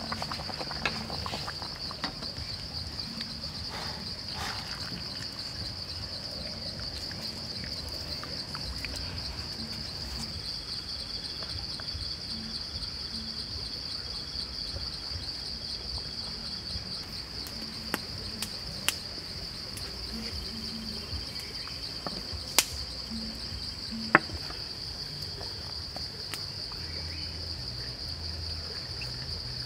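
Steady high-pitched chirring of insects, crickets or cicadas, with a slight pulsing texture. A few sharp knocks stand out in the later part.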